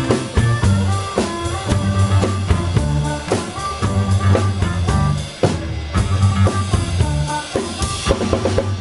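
Live blues band playing: a drum kit with kick and snare, electric bass, keyboard and amplified harmonica.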